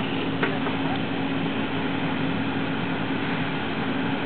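Steady hiss of water spraying from a sprinkler head mounted on a 10-foot pole fed by a fire hose, over the steady hum of a running engine, with a single click just after the start.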